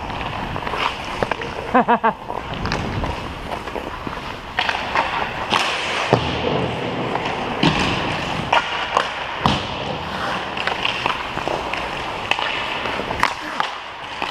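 Ice skate blades scraping and gliding over rink ice, with repeated sharp clicks of a hockey stick blade handling a puck.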